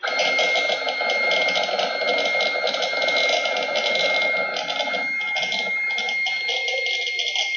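CNC Y-axis lead screw and brass anti-backlash nut travelling under motor drive: a steady high whine over a gritty grinding, the 'granulation sound' of a non-linear lead screw. It is put down to a slight bow in the screw and a bearing issue.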